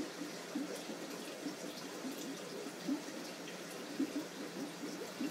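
Aquarium water burbling and splashing at a churned surface, an uneven run of small gurgles and drips over a steady hiss of moving water.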